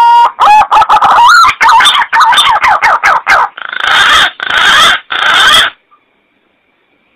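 Green pigeon (punai) call played as a hunting lure: a long whistled note that rises and then holds, followed by a quick run of warbling notes and three harsh, grating notes, stopping about six seconds in.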